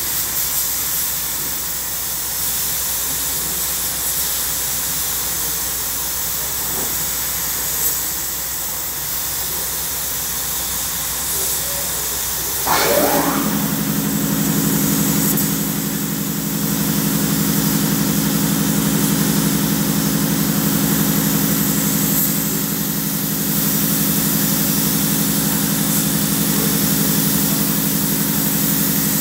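Compressed-air paint spray gun hissing steadily as it sprays paint. About halfway through, a steady machine hum with several low tones starts up and runs on under the hiss, making the sound a little louder.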